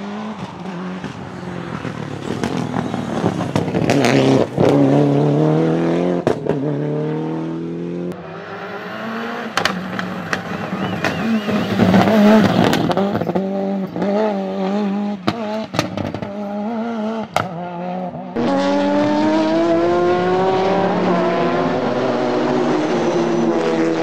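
Castrol-liveried Toyota rally cars, a Celica GT-Four and then a Corolla WRC, driven hard on a stage. Their turbocharged four-cylinder engines rev up through the gears again and again, with a few sharp cracks. In the last few seconds a Toyota Supra GT race car runs at full throttle on a circuit, its engine note climbing as it accelerates.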